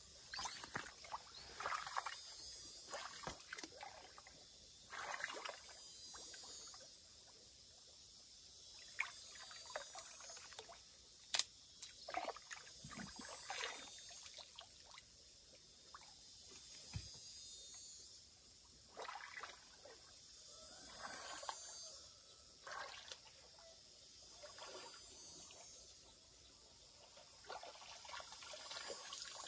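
Water trickling and splashing in irregular sloshes, with a few sharper clicks among them.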